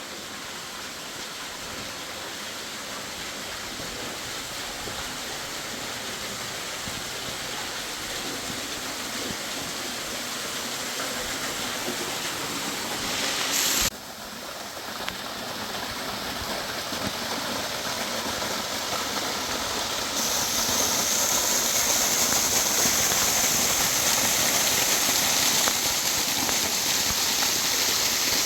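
Rushing river water, a steady roar that slowly grows louder. It cuts off abruptly about halfway through, resumes, and turns louder and hissier about two-thirds of the way in.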